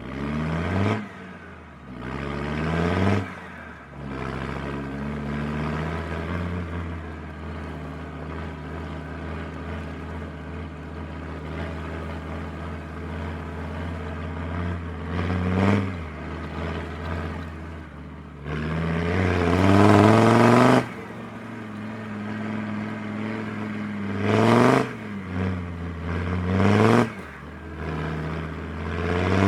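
Land Rover Defender Td5's five-cylinder turbodiesel engine being driven, running steadily at low revs with several short bursts of revving. The longest and loudest rev comes about two-thirds of the way through.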